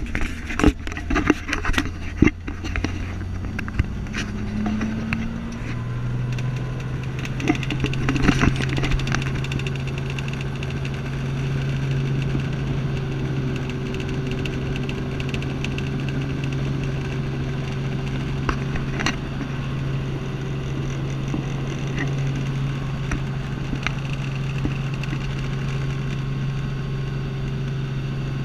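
Light helicopter's engine and main rotor heard from inside the cabin. A few seconds of knocks and clicks and a briefly rising tone give way, about six seconds in, to a steady hum that holds at an even level.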